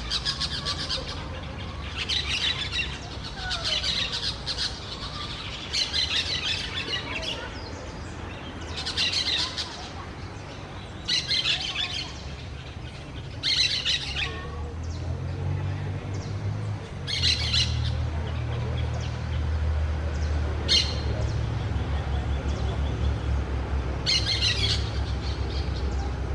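Orange-chinned parakeet giving short bouts of shrill, chattering squawks every two or three seconds, with longer pauses later on. A low steady rumble sits underneath in the second half.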